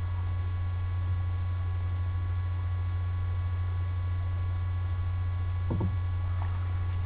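Steady low electrical hum with a few faint, thin high whine tones over hiss; a brief faint knock about six seconds in.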